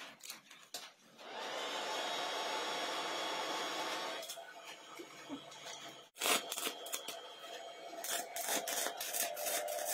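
Welding arc from an MMA-250XL inverter stick welder, struck between the electrode holder and the earth clamp to test the machine after its IGBTs were replaced. A steady hiss runs for about three seconds, then after a short break the arc crackles and sputters irregularly for the last few seconds, showing the repaired welder is putting out current.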